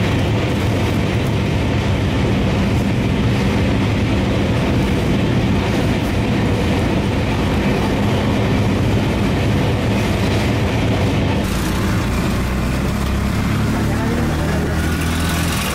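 Express train running at high speed, heard from inside the carriage: a steady, loud rumble of wheels on the rails. Near the end it gives way to an auto-rickshaw's small engine running.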